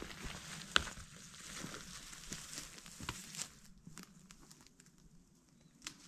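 Rustling and crackling in dry leaves and brush, with sharp cracks about a second in and around three seconds. After about three and a half seconds it turns quieter, with a few scattered clicks.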